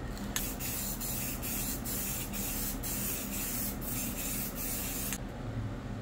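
Aerosol spray can spraying a final even coat over the painting: a steady hiss that starts about half a second in and cuts off suddenly about five seconds in, pulsing slightly about twice a second.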